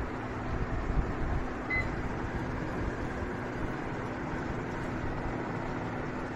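Mispa Viva semi-automatic biochemistry analyzer giving one short, high beep about two seconds in, over a steady machine hum as it empties after aspirating water.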